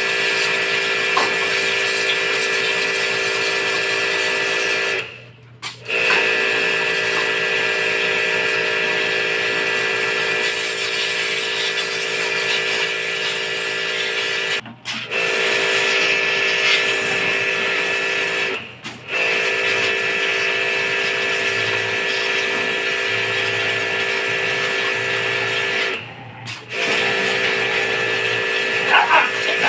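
Pressure washer running steadily with a constant hum and spray of water, cutting out briefly four times and starting up again each time.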